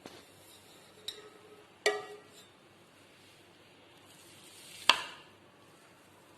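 Light taps on an upturned metal cake pan to knock a baked cake out onto a plate: four sharp knocks with a short metallic ring, the loudest about five seconds in.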